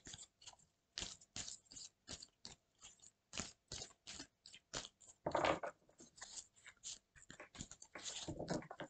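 Deck of fortune-telling cards being shuffled by hand: a quick, irregular run of soft card snaps and slaps, with a longer, louder rustle of cards about five seconds in.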